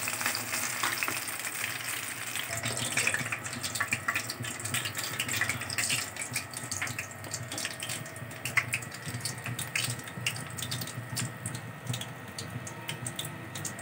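Breaded chicken wings deep-frying in hot oil, a steady sizzle with many small crackles, as the fried pieces are lifted out with tongs.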